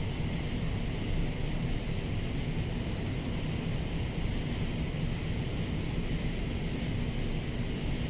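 Steady chorus of cicadas, a continuous high-pitched drone, over a constant low rumble.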